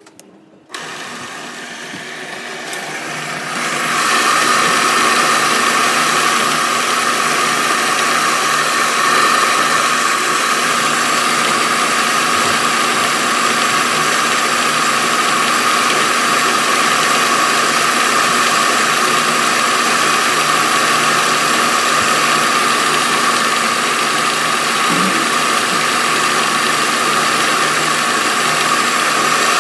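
Electric rice milling machine switched on about a second in, building up over the next few seconds and then running steadily with a loud, even whirr as it mills rice.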